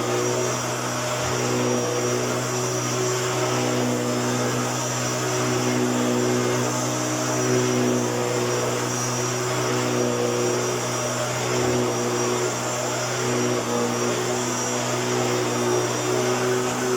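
Hoover Turbopower U2806 upright vacuum cleaner running steadily, its motor holding a constant tone over the rush of air.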